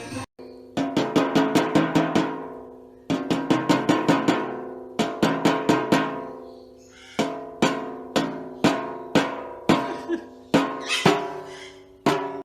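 Music of struck, ringing notes: chords hit in quick rhythmic groups, each dying away before the next group.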